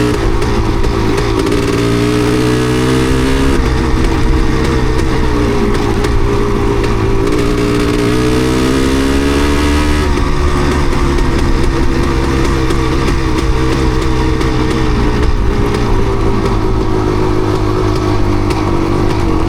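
Yamaha DT250MX single-cylinder two-stroke engine running as the trail bike is ridden, its revs climbing and then dropping back twice, as at gear changes.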